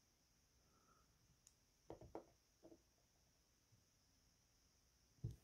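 Near silence with a few faint plastic taps, about two seconds in and again near the end, as a LEGO minifigure is picked up and set back down.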